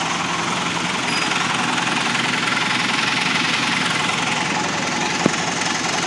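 An engine running steadily with a fast, even chugging, and a single sharp click about five seconds in.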